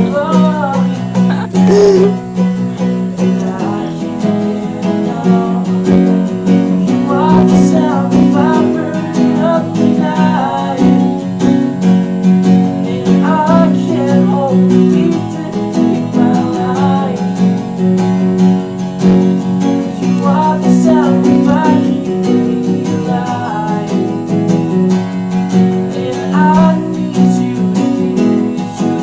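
Live acoustic song: an acoustic guitar strummed steadily, with a voice singing over it in phrases every few seconds.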